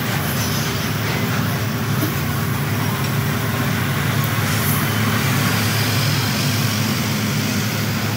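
Heavy semi-trailer trucks driving past close by: a steady low engine rumble with continuous tyre and road noise.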